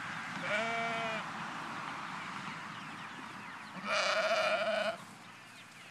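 Bleating livestock: a short bleat about half a second in and a louder, wavering bleat about four seconds in. Under them is the steady clucking and peeping of a flock of broiler chickens.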